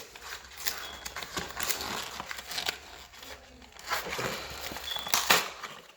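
Toy packaging crinkling and tearing as it is pulled open by hand, in irregular rustles and clicks with louder bursts about four and five seconds in.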